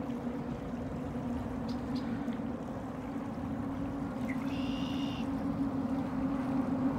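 A steady low motor hum runs under a rushing wash of wind and water noise. About four and a half seconds in there is a short high-pitched tone.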